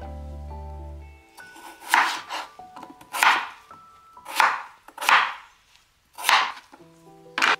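Chef's knife chopping a peeled potato on a wooden cutting board: six sharp strikes of the blade on the board, about a second apart, starting about two seconds in.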